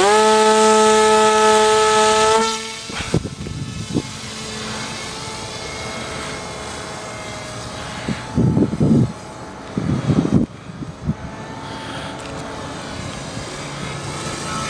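Electric motor and propeller of an RC airplane whining up in pitch to full throttle, held steady for about two and a half seconds, then falling away to a fainter steady hum as the plane flies off. Two short bursts of rushing noise come about halfway through.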